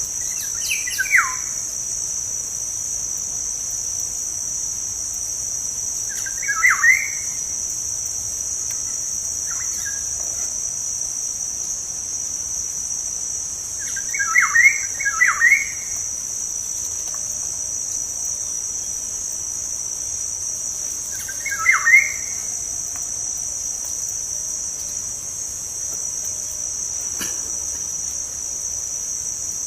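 Black-naped oriole (kepodang) calling in short bursts of quick falling notes, about four times with long gaps between, over a steady high-pitched insect drone.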